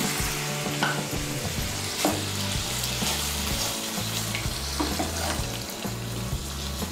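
Soyabean and potato curry sizzling in a kadai just after water has been added to the fried masala, while a flat spatula stirs it and scrapes against the pan a few times. Soft background music with a slow bass line plays underneath.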